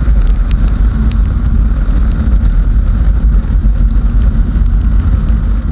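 A KTM 390 Adventure's single-cylinder engine running while the bike is ridden, with heavy, steady wind rumble on the microphone.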